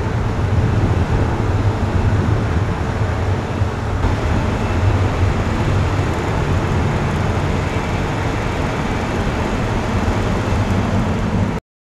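Airbus A330-202's twin General Electric CF6-80E1 turbofans climbing out after takeoff: a loud, steady jet rumble heavy in the low end. It cuts off suddenly near the end.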